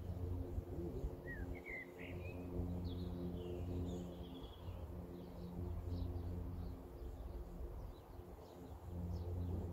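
Birds chirping in short, scattered calls, some rising in pitch, over a steady low hum.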